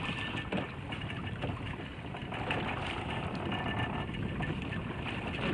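Steady wind and sea noise on an open fishing boat, with a few faint clicks.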